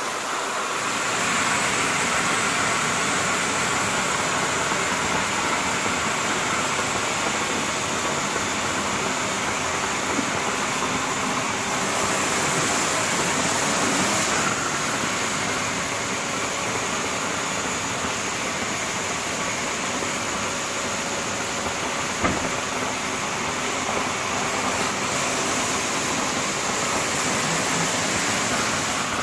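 Hydro-Force spinner tile-and-grout cleaning tool running over ceramic floor tile: a steady hiss of pressurised spray jets under the spinning hood and vacuum suction pulling the dirty water up the recovery hose. There is one brief knock about two-thirds of the way through.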